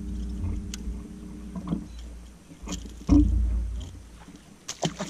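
Knocks and thumps on an aluminium fishing boat, with a few sharp clicks, as a bass is fought and lifted aboard in a landing net. A low hum fades out over the first two seconds, and a heavy thump comes about three seconds in.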